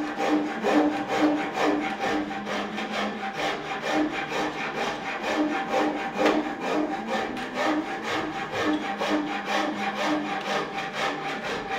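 Hand file rasping a wooden shotgun stock blank held in a vise, in steady back-and-forth strokes at about two to three a second, as the pistol grip is shaped by hand. A faint steady hum runs underneath.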